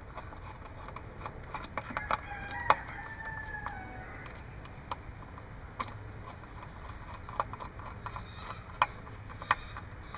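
Small clicks and taps of a screwdriver and screws as screws are driven back into a blower's housing by hand, the sharpest about three seconds in. From about two to four seconds in, a drawn-out bird call sounds, falling in pitch at its end.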